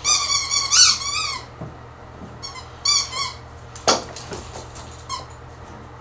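Dog's squeaky toy squealing again and again as it is chomped and shaken: a long wavering squeal at the start, then shorter bursts. A single sharp knock falls about four seconds in.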